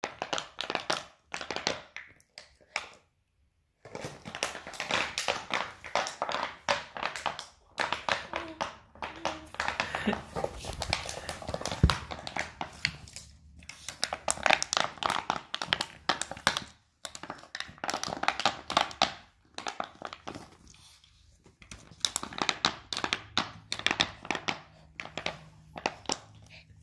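A small dog chewing a plastic bottle: rapid crinkling and crackling of the plastic under its teeth, in bursts with short pauses.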